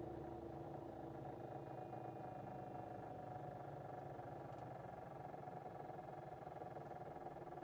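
Bell 212 helicopter heard from inside the cabin, winding down after shut-off: its twin turboshaft engines and drive run on with a steady whine over a fast low flutter. One of the tones fades out about a second in, and the whole sound eases off gently.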